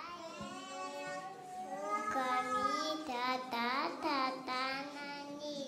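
A young girl's high voice in a sing-song delivery, with long drawn-out words that glide up and down in pitch.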